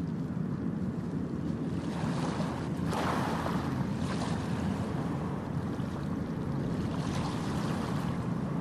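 Steady rushing ambient noise, like wind or surf, swelling briefly about three seconds in.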